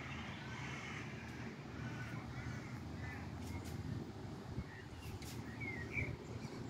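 Distant aircraft overhead, a low steady rumble, with crows cawing now and then. A short bird chirp comes about six seconds in.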